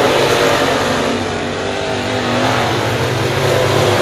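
A pack of dirt-track race cars running hard around the oval, several engines overlapping. The sound eases slightly partway through, then swells again as the cars come through the near turn.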